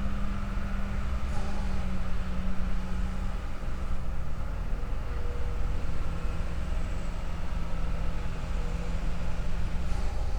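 A machine running steadily: a low, even rumble with a steady hum.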